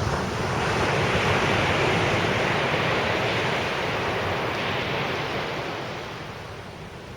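A wave breaking on the beach and washing up the shore: a rushing hiss that swells over about a second, holds, then slowly fades away.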